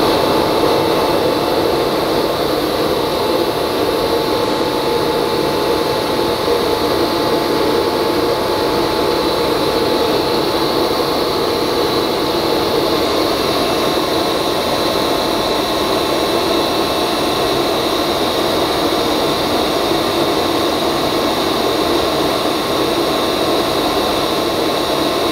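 Wieland FS-216 industrial coolant and swarf vacuum running steadily in overpressure mode: a motor whine over a rushing hiss. It is pushing coolant back out through its hose, with coolant gushing into a machine's coolant tank.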